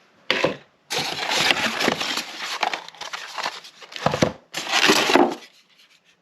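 Plastic packaging crinkling and rustling as it is handled, in a short burst near the start and then a long stretch of continuous rustling that stops about five seconds in.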